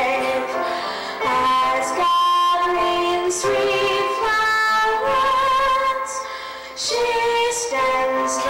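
A female voice singing a song, with long held notes that waver slightly and short gaps between phrases.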